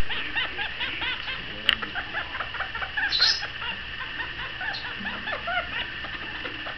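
Red-bellied parrot chattering in quick, short clucking chirps, several a second, with a sharp click a little under two seconds in and a louder, higher chirp about three seconds in.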